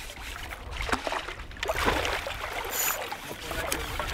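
Hooked fish splashing at the surface close to the bank as it is drawn into a landing net, water sloshing in irregular bursts that are thickest around the middle.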